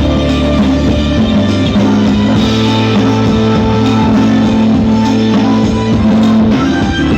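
Loud music played through a 5200-transistor single-channel power amplifier and speaker on a sound test.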